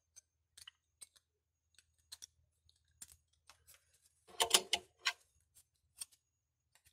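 Light plastic clicks and taps of a smartwatch being handled with its back open and battery pressed into place, with a louder clatter about four and a half seconds in as the plastic back cover is picked up from the table.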